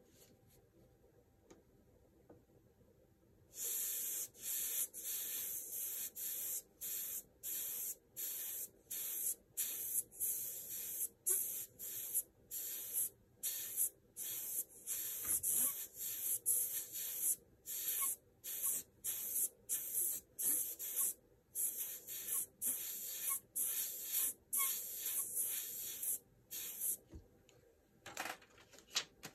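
Airbrush hissing in many short bursts, about one or two a second, as the trigger is pressed and let go to spray paint along a template edge. The bursts start about three and a half seconds in and stop a couple of seconds before the end.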